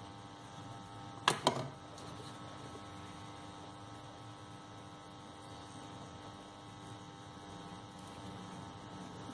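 Steady electrical mains hum with a stack of even tones, and two sharp clicks close together a little over a second in.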